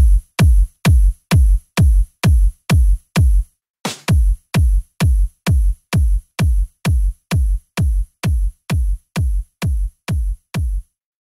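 Electronic dance music with a steady drum-machine kick on every beat, about two a second, each hit carrying a bright high top. The beat drops out briefly about four seconds in, then comes back and stops just before the end.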